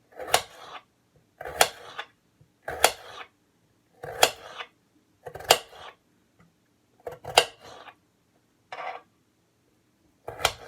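Kitchen knife cutting through a raw potato and striking the cutting board: about eight separate cuts at an unhurried pace, roughly one every second and a half.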